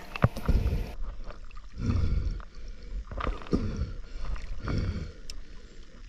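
Muffled water sloshing and gurgling around a camera at and just under the river's surface, with several swells of louder splashing as the diver moves.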